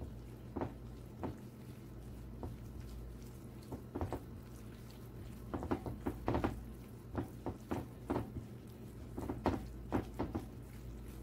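Gloved hand squishing raw chicken pieces through a wet spice-and-oil marinade in a bowl: irregular soft squelches that come in quick runs, loudest about halfway through and again near the end.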